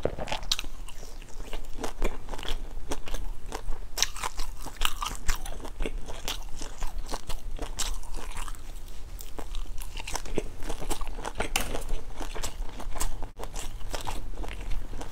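A person biting and chewing grilled sesame-coated sausage from a skewer: irregular crunchy bites and wet chewing clicks.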